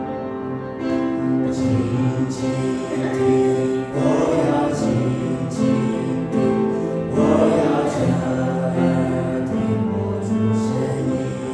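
A hymn sung with instrumental accompaniment, in slow, long-held notes.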